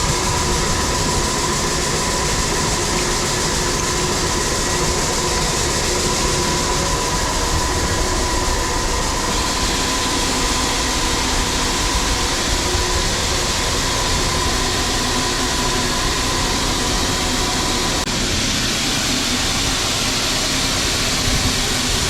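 Heavy farm machinery running steadily at high throttle: a loud, constant engine and drivetrain noise with a thin steady whine.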